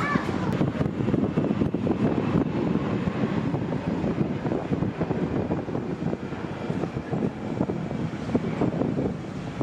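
Airbus A320 jet engines at takeoff thrust during the takeoff roll and lift-off: a steady, crackling rumble, with some wind noise on the microphone.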